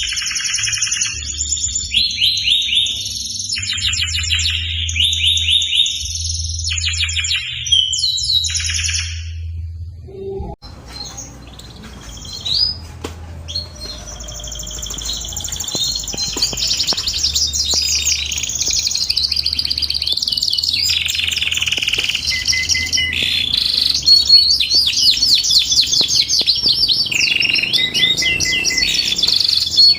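Domestic canary singing in long, rapid trills and rolling phrases, high-pitched and loud. The song breaks off about ten seconds in and resumes a few seconds later, then runs on with hardly a pause.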